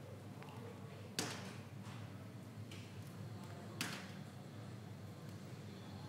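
Water dripping onto a hard surface: two sharp single drips, about a second in and near four seconds in, over a faint steady low hum.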